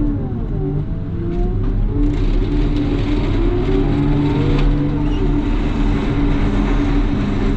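CAT loader's diesel engine running steadily as it works, pushing snow. Its pitch rises and falls in places as the revs change.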